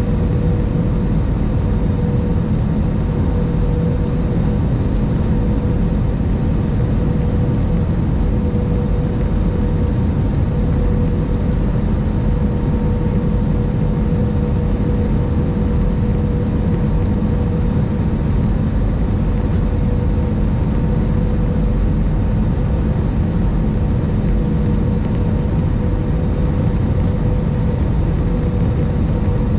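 Airbus A319 cabin noise on final approach: the steady hum of the engines and rushing air heard through the fuselage, with a constant mid-pitched drone running through it.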